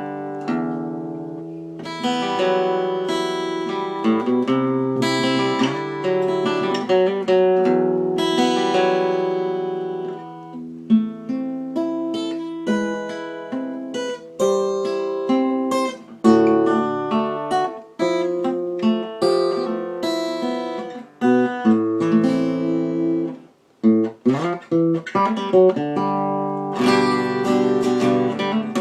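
Acoustic guitar played solo with no singing: strummed chords mixed with picked notes. The playing drops out for a moment a little past two-thirds through, then goes on with a quick run of notes.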